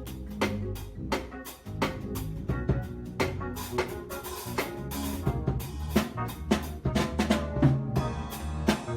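Music led by a drum kit playing a busy beat of kick, snare and rim hits, over sustained bass and pitched instrument notes.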